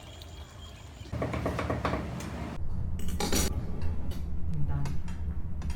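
Dishes and cutlery clinking: a handful of sharp clinks over a low steady hum.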